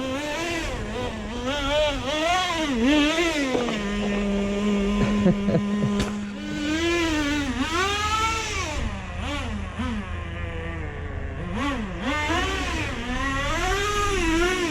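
Small nitro engine of a Traxxas T-Maxx RC monster truck, revving up and down over and over as it is driven. Its pitch holds steady for a couple of seconds around the middle.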